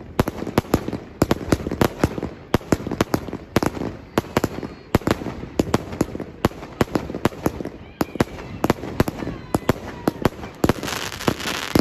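Aerial fireworks firing in quick succession: a steady string of sharp bangs as shots launch and burst, several a second, turning to a denser crackle near the end.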